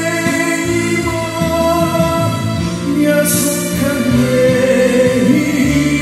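A man singing a slow Korean ballad into a microphone, with acoustic guitar accompaniment and long held notes.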